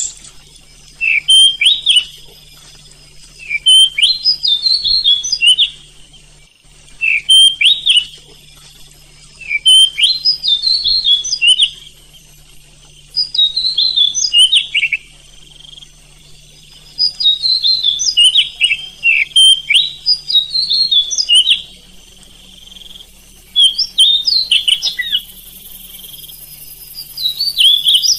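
Oriental magpie-robin (kacer) singing: loud phrases of quick whistles and chirps, each lasting a second or two and repeated about every three seconds with short pauses between.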